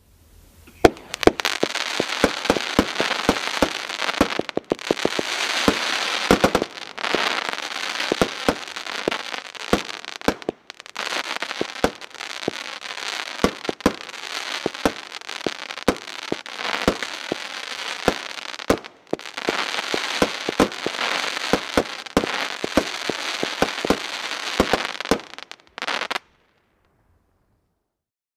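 Cutting Edge Fireworks 'Black Eye' consumer cake firing: a long run of sharp shot reports over a continuous crackling hiss, with a few brief pauses. It stops abruptly near the end.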